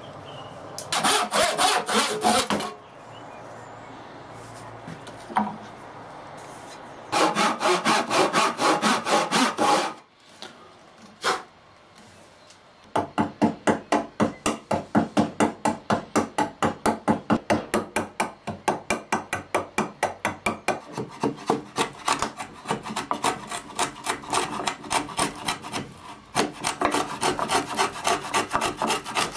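Hand woodworking on a board. Two bursts of fast hand-saw strokes come first, then a single knock. After that a chisel and a small metal hand plane pare out a housing in a long run of regular scraping strokes, about two a second, that get quicker near the end.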